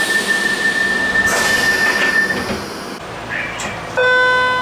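London Underground train's door-closing warning: a steady high beep sounding while the doors slide shut with rushes of air. About four seconds in, after a cut, a BART train's door chime sounds once, a short low tone.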